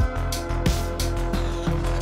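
Background music with a steady beat, about three drum hits a second, over heavy bass.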